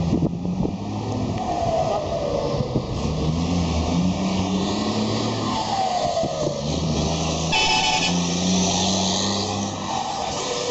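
Volkswagen Constellation truck's diesel engine running loudly, its low note stepping up and down. A falling whistle comes three times, and a brief noisy burst about eight seconds in.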